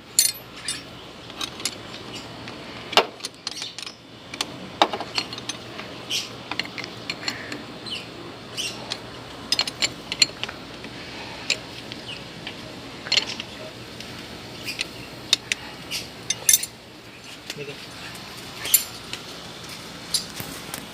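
Hand tools clicking and clinking on metal as a connection in a car's electrical wiring is tightened, in scattered sharp taps a second or two apart.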